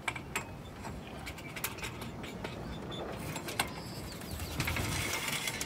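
Scattered light clicks and knocks from the mast and its wire side stays being handled on a sailboat's deck, over steady outdoor background noise.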